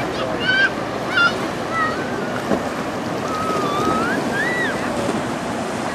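Choppy river water splashing and washing against a rocky shore in a steady rush. A few short, high, wavering cries sound over it: two close together about a second in, and a longer rising-and-falling one about four seconds in.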